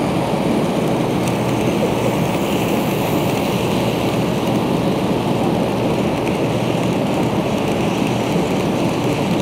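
N scale model freight train rolling past close by: a steady rushing rattle of small wheels on the track.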